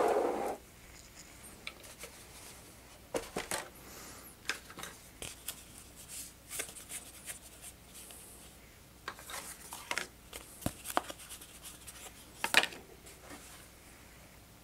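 Light rustling and scattered small clicks of a foam model-airplane elevator being picked up and handled, with one sharper click near the end.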